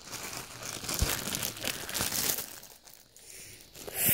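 Clear zip-top plastic bag crinkling as it is handled, easing off briefly about three seconds in and picking up again near the end.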